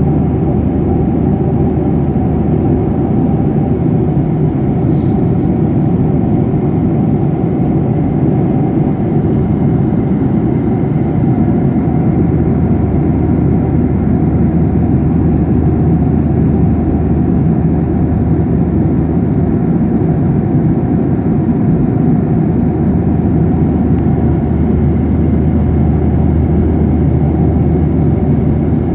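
Steady drone of a jet airliner in flight, heard inside the cabin: engine and airflow noise, deep and unchanging.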